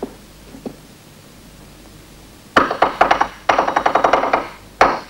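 A Morse code signal tapped out as sharp knocks with a slight ringing: a short quick run of taps about two and a half seconds in, a longer dense run a second later, and one single knock near the end.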